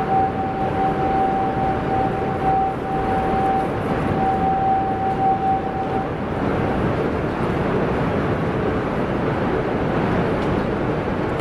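Busy railway platform ambience under a station roof: a steady hubbub of people and movement. Over it, a steady high electronic tone sounds for about the first six seconds, then fades out.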